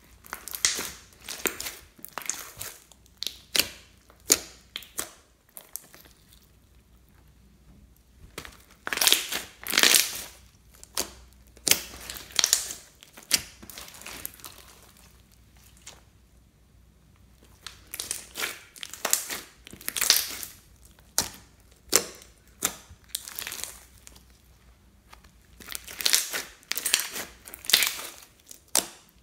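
Pink glitter slime, clear slime with makeup mixed in, being kneaded, squeezed and stretched by hand: irregular runs of sticky squishing and popping as trapped air escapes, broken by a few quieter pauses.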